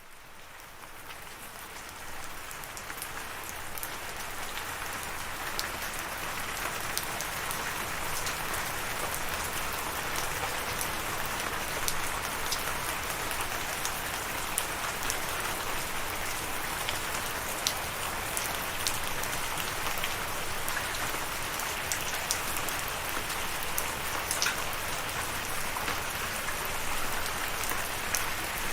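Steady rain falling, with individual drops ticking sharply on a surface. It fades in from silence over the first few seconds, then holds steady.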